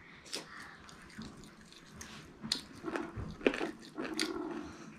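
Eating sounds: chewing and soft wet mouth smacks with scattered small clicks, a few sharper ones in the second half.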